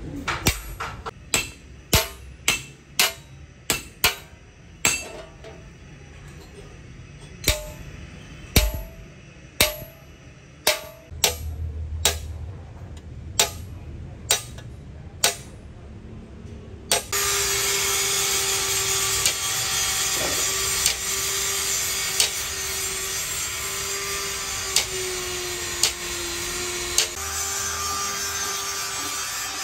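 A hand hammer striking a steel punch to engrave a design into a metal sheet: sharp metallic taps with a brief ring, irregular, about one or two a second. About halfway through, the taps give way to a steady hiss with a constant hum and only a few faint taps.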